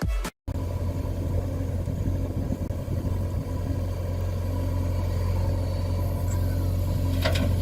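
Engine idling steadily, a low hum, with a few short knocks near the end.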